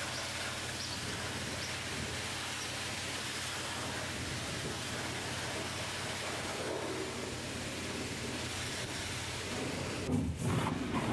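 Pressure-wash wand spraying water onto a truck, a steady rushing hiss heard from inside the cab over a low steady hum. The spray breaks off near the end.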